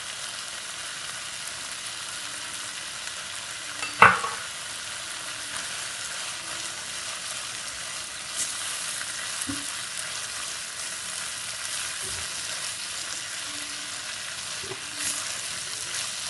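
Kidney beans and onions sizzling in a stainless steel kadai as they are stirred and turned with a silicone spatula: a steady frying hiss, with one sharp knock about four seconds in and a few lighter knocks later.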